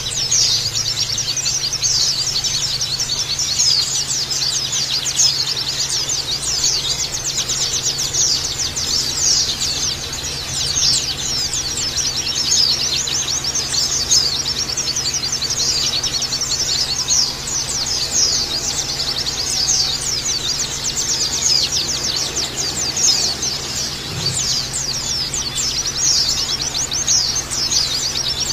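A group of white-eyes (pleci) chirping and twittering in fast, dense, overlapping high calls without a break. A faint steady low hum runs underneath.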